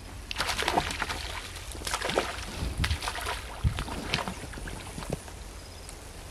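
A hooked fish splashing at the surface of a small pond as it is pulled in on a line, in a run of irregular splashes that stop about five seconds in.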